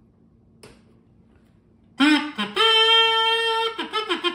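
Kazoobie electric kazoo hummed into with a loud buzzing tone. It starts about halfway through with a couple of short bending notes, then a long held note, a few quick choppy notes and another held note. Before that there is a single faint click.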